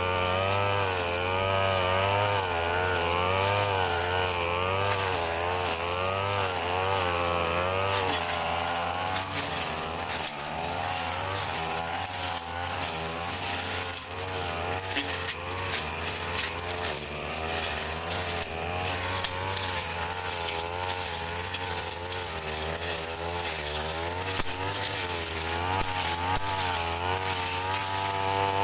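Brush cutter engine running at high revs while cutting grass, its pitch wavering up and down continuously as the load changes.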